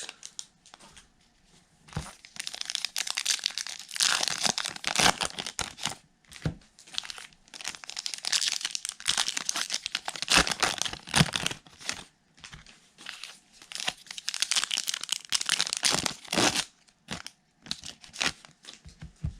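Plastic wrapping of a 2021 Topps Heritage baseball-card blaster box and its card packs being torn open and crinkled by hand, in several runs of tearing and crinkling with short pauses between them.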